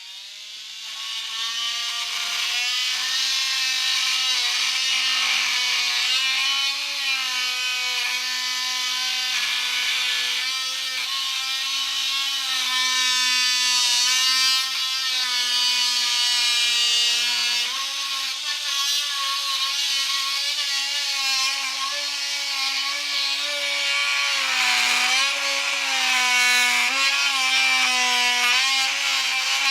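Milwaukee M12 cordless oscillating multi-tool plunge-cutting into maple: the blade makes a steady buzzing whine with a rasping hiss of wood being cut. It comes up to speed in the first couple of seconds, and its pitch dips and recovers slightly as the blade loads in the hardwood.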